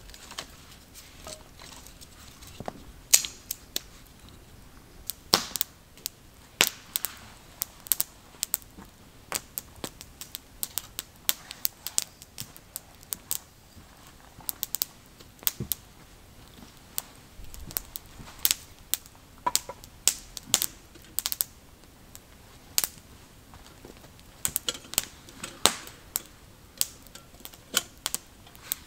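Wood campfire crackling: irregular sharp pops and snaps from the burning wood, sometimes several in quick succession, over a low steady background.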